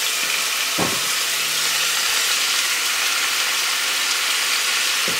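Ground beef frying in olive oil in a shallow pan, with a steady sizzle.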